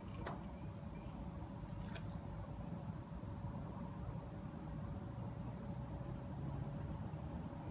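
Night insects calling: a steady high-pitched trill, with a separate short chirp repeating about every two seconds, over a low background rumble.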